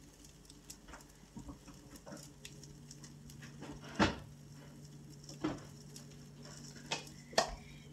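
A handful of light knocks and taps from kitchen things being handled, the clearest about four seconds in and a few more near the end, over a low steady hum.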